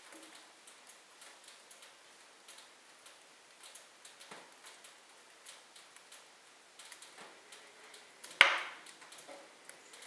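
Wood fire burning in a fireplace, logs crackling with many small irregular ticks and snaps, and one loud pop near the end.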